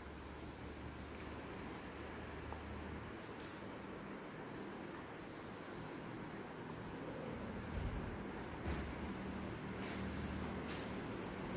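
A steady high-pitched insect trill over a low background hum, with a few soft low thumps around the middle to later part.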